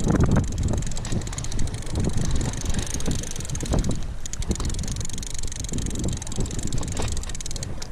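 Conventional saltwater fishing reel being cranked steadily under a light load, its gears giving a rapid fine ticking whir that stops near the end. Wind rumbles on the microphone throughout.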